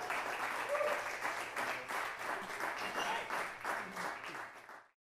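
Audience applauding after a live jazz tune, a dense patter of many hands clapping that cuts off abruptly near the end.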